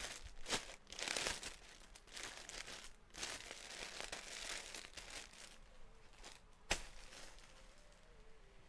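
Crinkling and rustling as clothes and their plastic bags are handled, in two longer stretches, with a sharp click about half a second in and another near the seven-second mark.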